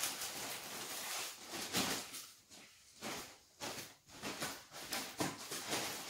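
Large stuffed plastic bags rustling and scraping as they are dragged across a tiled floor, in repeated uneven surges.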